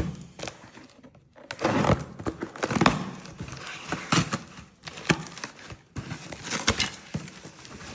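Packaging being handled while unboxing: irregular rustling and crinkling with small knocks and clicks.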